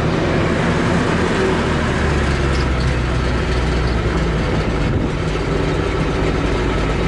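Engine of an AP-4014 loader running steadily while its boom is brought against a trailer side board. The low hum grows stronger about two seconds in, as if it is taking load.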